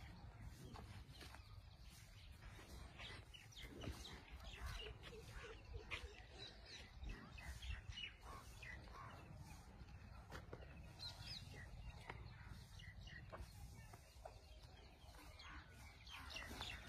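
Faint, scattered bird chirps over a quiet low background.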